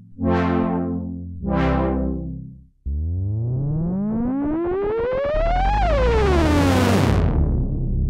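Melbourne Instruments Nina synthesizer played from a keyboard: two short chords that brighten sharply and fade, then a held sound that sweeps steadily upward for about three seconds and falls back down, settling into low held notes near the end.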